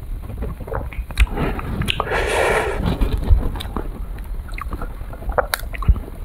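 Close-miked crinkling and crackling of an ice cream cone's paper-and-foil wrapper being handled and peeled open, with scattered sharp crackles and a longer rustle about two seconds in.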